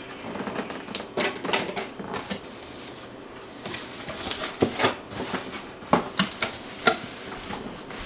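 Cardboard printer box being opened and handled: irregular rustling and scraping of cardboard and packing with a scatter of sharp knocks and clicks, the loudest around five to seven seconds in.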